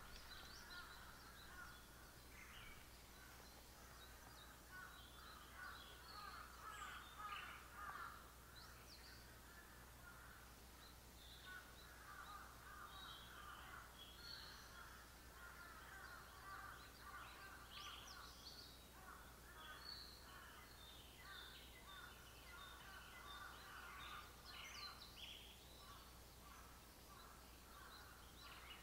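Faint mixed birdsong: several birds calling and singing at once, with a dense run of short repeated notes and scattered higher, sliding phrases, over a steady low hum.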